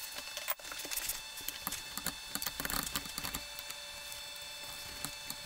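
Faint scattered clicks and light metallic rattles, densest in the first half, from a manual transmission being handled and shifted on a floor jack under the car.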